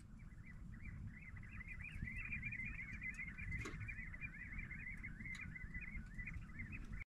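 A flock of Eurasian oystercatchers going mental: many shrill piping calls overlapping in a rapid, unbroken chorus, over a low steady rumble. A single sharp click comes about three and a half seconds in.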